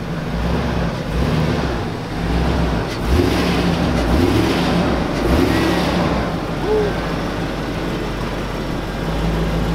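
Hummer H2's V8 engine running under load as the SUV crawls up and over a dirt mound. Its note swells a few times between about three and six seconds in, then settles.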